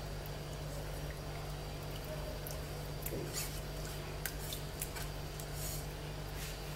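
A few faint clicks, light taps and soft swishes of kitchenware being handled, over a steady low hum, as melted butter and margarine is poured onto semolina and the bowl is moved away.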